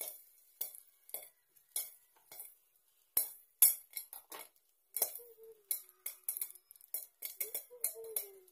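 Popcorn popping in a covered kadhai: irregular sharp pops, with kernels clinking against the glass lid.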